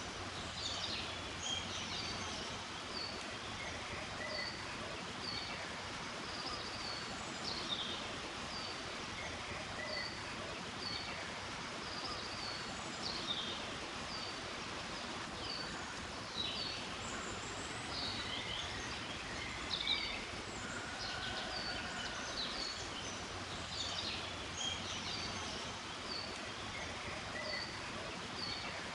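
Small birds chirping over a steady hiss of mountain-forest ambience, with short high notes repeating about once a second.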